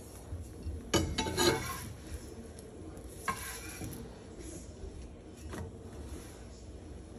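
Metal spatula scraping and clinking against a skillet as it works under a chapati and turns it, with a loud cluster of clatter about a second in and a second scrape about three seconds in. A faint sizzle from the frying bread lies underneath.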